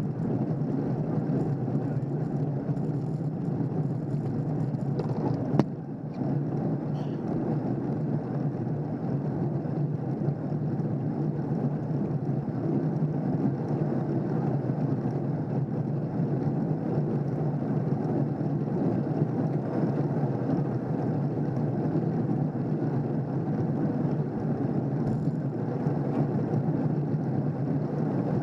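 Steady rumble of wind and road noise picked up by a camera riding on a road bike in a moving pack of cyclists. One sharp knock about five and a half seconds in.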